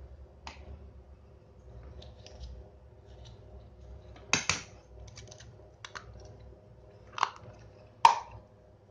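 A handful of sharp clicks and knocks, like small hard parts being handled or snapped together, the loudest about four and a half, seven and eight seconds in, over a faint steady hum.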